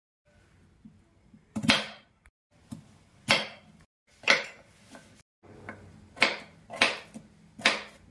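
Kitchen knife cutting a peeled raw potato on a wooden chopping board: about six sharp knocks of the blade through the potato onto the board, roughly a second apart, with a few softer taps between.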